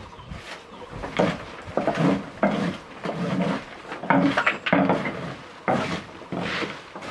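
Irregular knocks and clatter of hard objects being handled and set down, some with a wooden sound.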